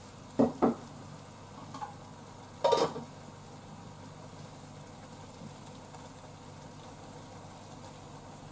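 Sukiyaki udon simmering in a small pot on an induction hob while it is stirred with chopsticks, giving a steady low sizzle. A few short knocks come in the first second, and a louder clatter comes about three seconds in.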